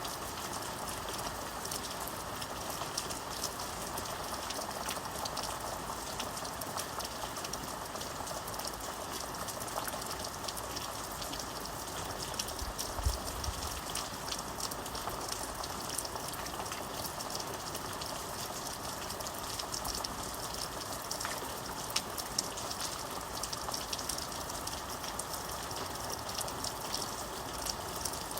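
Steady rain falling, a dense even hiss with many small drop ticks. A brief low thump sounds about halfway through.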